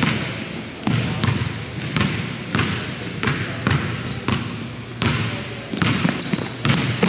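Basketball dribbled on a gym floor, a steady series of bounces roughly every half-second to second, with short high sneaker squeaks on the floor as the player drives.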